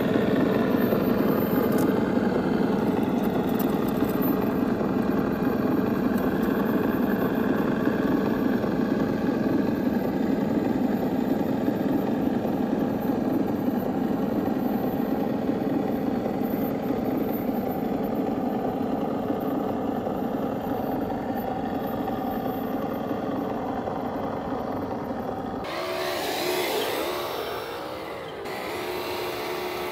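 Electric motor and gear drivetrain of a Traxxas TRX-4 1:10-scale RC crawler whining steadily as it crawls up rock. About 26 seconds in the sound changes, its pitch rising and falling as the truck speeds up and slows.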